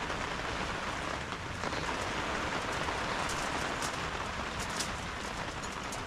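Steady rain falling, with a few sharper single drop hits about halfway through.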